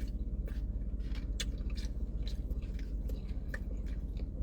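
A person chewing a mouthful of barbecue, with short wet smacks and clicks scattered throughout, over a steady low hum.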